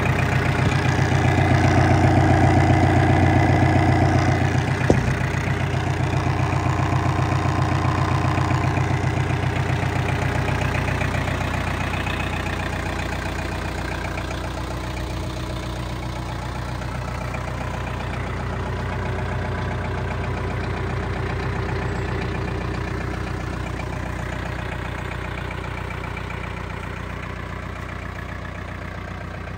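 Mitsubishi MT23 compact tractor's four-cylinder diesel engine idling steadily, with a single sharp click about five seconds in. The engine grows gradually fainter over the second half.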